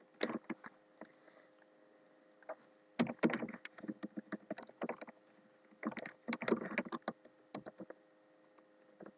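Typing on a computer keyboard: quick runs of key clicks in several bursts separated by short pauses.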